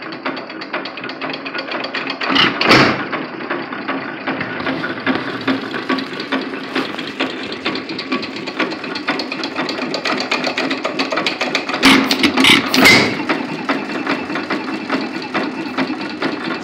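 Nelson Brothers Jumbo 2 1/2 hp stationary gas engine running, a steady fast mechanical clatter over a low hum, with louder bangs about two seconds in and again around twelve seconds.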